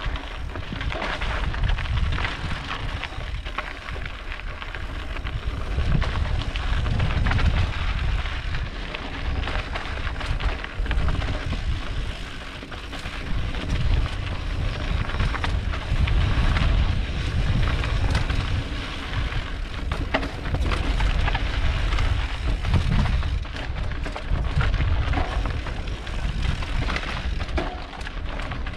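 Wind rumbling on the microphone of a moving mountain bike, with the tyres crunching and the bike rattling over a rocky dirt trail as a steady run of small clicks and crackle.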